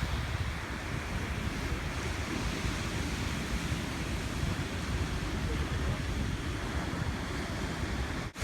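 Ocean surf washing onto the beach, a steady rushing noise, with wind buffeting the microphone. The sound drops out for an instant near the end.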